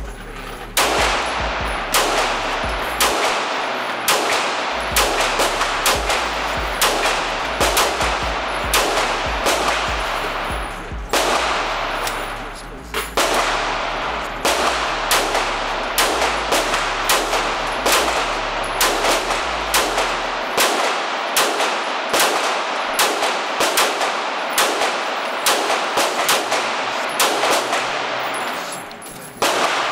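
Semi-automatic pistol firing steady strings of shots, about two a second, each crack ringing off the walls of an indoor range. There is a brief pause about eleven seconds in, then firing resumes and stops just before the end.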